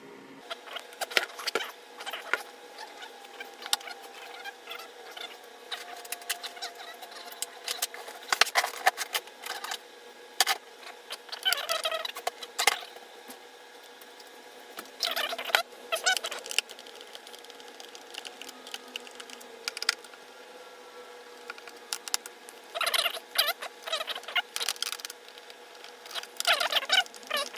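Hands and tools working on a portable power station's plastic case: scattered clicks and knocks, with short squeaky bursts now and then, a few of them in close runs near the end.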